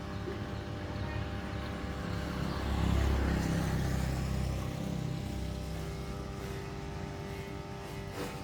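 An engine running steadily, getting louder for a couple of seconds about three seconds in, then settling back.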